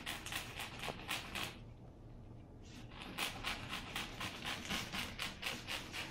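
Puppy panting rapidly, about four to five quick breaths a second, stopping for about a second partway through and then starting again.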